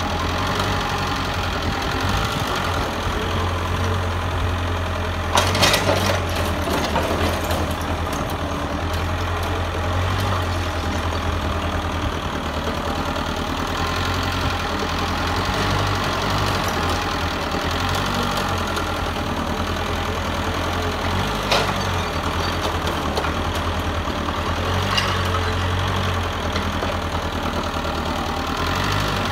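Mitsubishi excavator's diesel engine running steadily with a deep hum. A few sharp knocks cut through it, the loudest about five seconds in and two fainter ones later.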